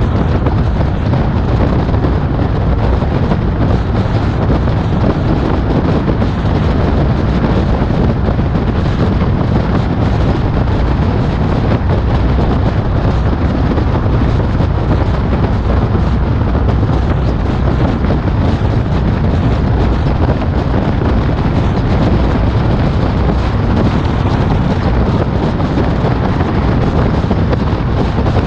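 Loud, steady wind buffeting on a bonnet-mounted action camera's microphone as the car drives at road speed, a deep rumble with no change.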